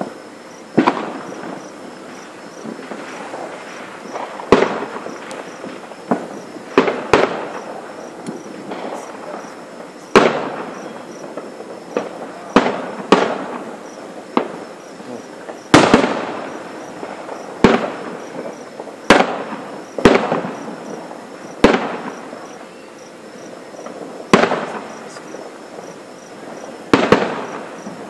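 Aerial fireworks bursting: about eighteen loud booms at irregular intervals, some in quick pairs, each echoing away over a second or so.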